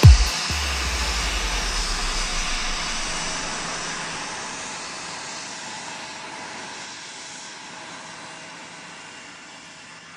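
Jet aircraft engine noise, an even rushing sound that fades out slowly over about ten seconds, following a single deep bass beat right at the start.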